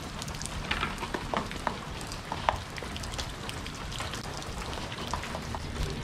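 Steady rain falling, with many small drop ticks close by and one sharper tick about two and a half seconds in.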